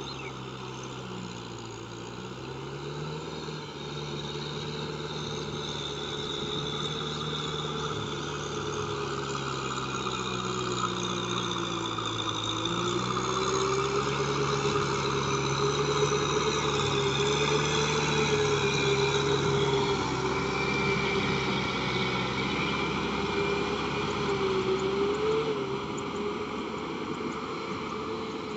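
Kubota M6040SU tractor's diesel engine running steadily while its rotary tiller churns through flooded paddy mud, growing louder as it comes closer. The engine pitch dips briefly about twelve seconds in, then recovers.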